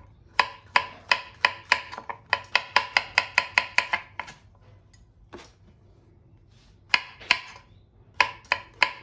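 Kitchen knife slicing brown mushrooms on a wooden cutting board: quick, sharp taps of the blade on the board, about four or five a second. The taps stop for a couple of seconds in the middle and resume near the end.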